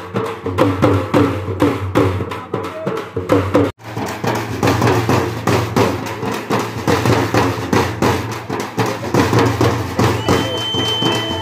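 A group of large stick-beaten drums playing a fast, driving street rhythm, with a sudden break about four seconds in. Near the end a high, steady tone joins the drumming.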